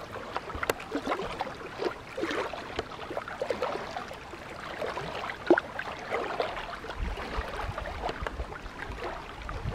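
Small waves lapping and sloshing against a rock lakeshore, with irregular splashes and gurgles and one sharper slap about halfway through. A low rumble comes in near the end.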